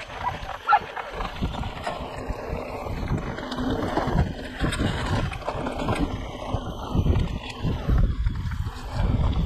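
Mountain bike ridden along a dirt trail: wind rushing over the microphone and tyres rolling over the ground, with irregular knocks and rattles as the bike goes over bumps.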